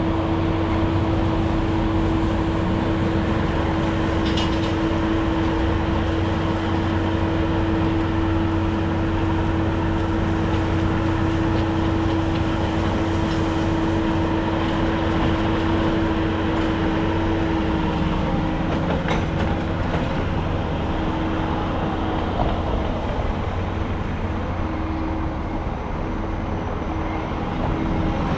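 Steady rumble of a moving vehicle, with a constant hum held at one pitch that turns unsteady about two-thirds of the way through.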